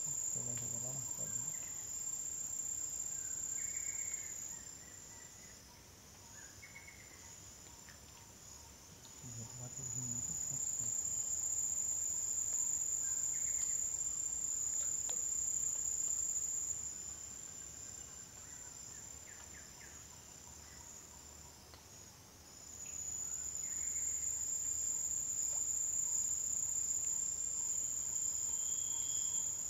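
A high-pitched, steady insect drone sings in long stretches of about six seconds. It stops twice for about five seconds each time and then starts again.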